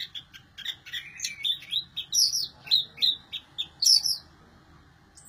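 Caged orange-headed thrush singing a fast, varied run of high, quick phrases, which stops about four seconds in. The bird has just finished its molt and is coming back into song.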